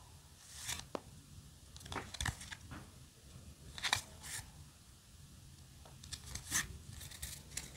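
Trading cards sliding against one another as a stack is fanned out card by card: a few brief, quiet swishes of card stock.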